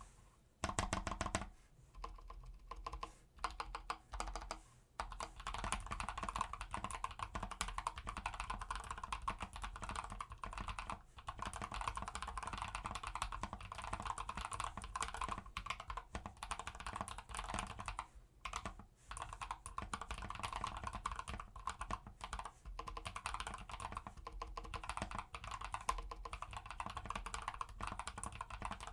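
Typing on a modded Drop CTRL mechanical keyboard with lubed Holy Panda tactile switches, clipped, band-aid modded stabilizers and foam in the case. A few short runs of keystrokes with pauses come first, then from about five seconds in, fast continuous typing.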